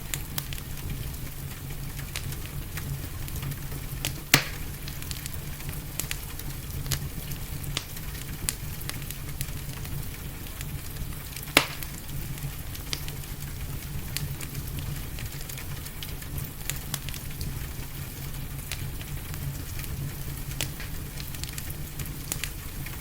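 Wood fire crackling in a fireplace: scattered small crackles and two louder pops, about four seconds in and again near the middle, over a steady low rumble and hiss.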